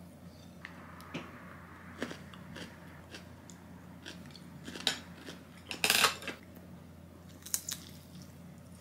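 Eating and tableware sounds: chopsticks clicking against a clear plastic rice container, and bites into a sauce-coated fried chicken piece. Scattered sharp clicks, with a louder crackly burst about six seconds in.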